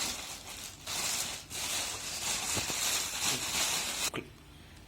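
Packaging being handled while speakers are unpacked from their box: rustling and rubbing in uneven spurts, stopping abruptly about four seconds in.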